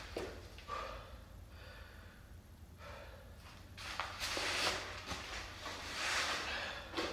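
A man breathing hard in a series of heavy gasps and exhales, winded from heavy sandbag lifts; the loudest breaths come about four and six seconds in.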